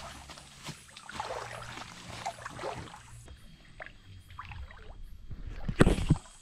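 Shallow water splashing and sloshing as someone wades and reaches into it with their hands. Scattered small splashes, then a couple of loud thuds near the end.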